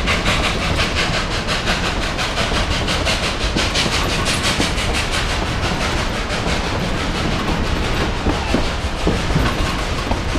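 Cars of the Cumbres & Toltec narrow-gauge steam train rolling along the track, heard from an open gondola car: a steady rumble with a quick, even clickety-clack of wheels over the rails.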